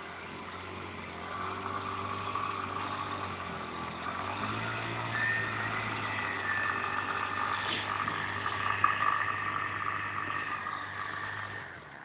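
Linhai Joker 50cc quad's small engine running and revving, getting louder after a second or so and rising in pitch about five seconds in, then easing off near the end.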